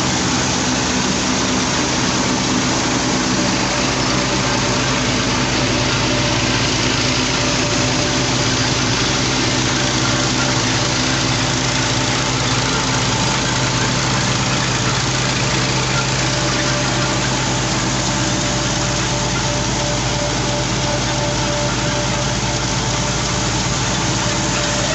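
Massey Ferguson 240 tractor's three-cylinder diesel running at a steady speed, driving a belt-powered stone flour mill and its shaking grain-cleaning sieve. The result is a constant, loud mechanical drone under a dense machinery noise.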